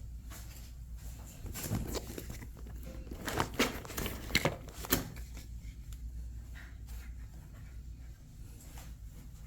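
Small-room handling noise: a cluster of short clicks, knocks and rustles between about one and a half and five seconds in, over a low steady hum.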